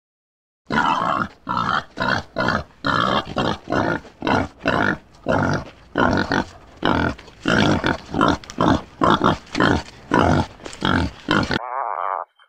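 Wild boar grunting in a steady rhythm, about two short grunts a second. Near the end a short wavering call from an Atlantic puffin.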